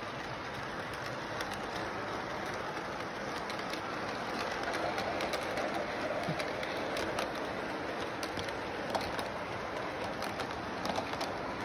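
Toy freight train rolling along its track, a steady rushing noise with scattered light clicks.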